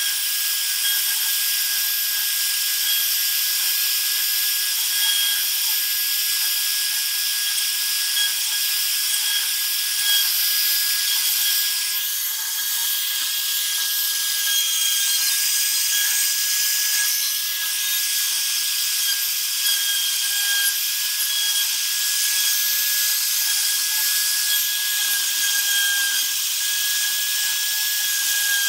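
Trim router mounted as the spindle of a homemade CNC machine, running at full speed with a steady high whine over a hiss while its pointed bit engraves into a wooden board.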